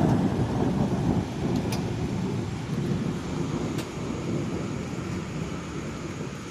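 Thunder rumbling, loudest at the start and slowly dying away over several seconds, over the steady hiss of rain.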